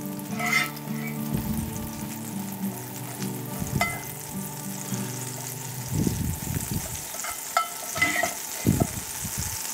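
Butter sizzling and foaming in a hot carbon steel skillet. A metal spoon pushes it around and clinks against the pan a few times, each clink ringing briefly.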